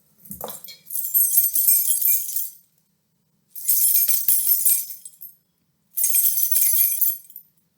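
A bunch of metal keys shaken and jingling, in three bursts of a second or two each.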